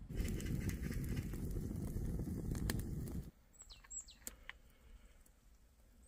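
Wood fire burning in the firebox of a clay stove under a pot: a loud low rumble with scattered crackles, cut off suddenly about three seconds in. After that, a few short falling bird chirps over a quiet background.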